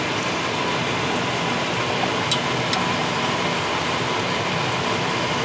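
Dough for Chinese fried dough cakes (youbing) deep-frying in a pot of hot oil: a steady sizzle, with a couple of small pops about two seconds in.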